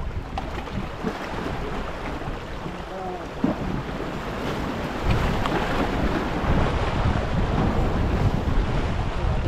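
Wind buffeting the microphone over the wash of sea waves, the wind rumble getting stronger about halfway through.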